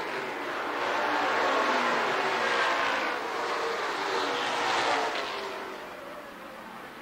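Stock car racing engines passing on the track. The sound swells and fades in waves as the cars go by, the pitch dropping on each pass, and dies down about six seconds in.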